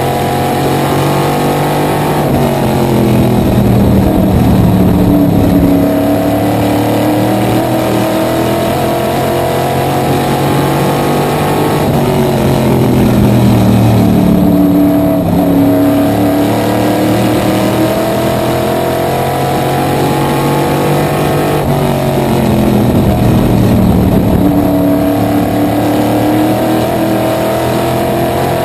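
Small-block V8 engine of a supermodified race car at racing speed, heard from the cockpit. Its pitch sags as the driver lifts through each turn and climbs again on the straights, about every ten seconds.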